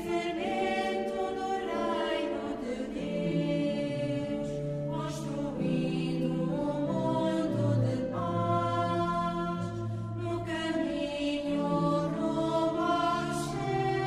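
Choir singing a slow hymn in several parts, with long held notes.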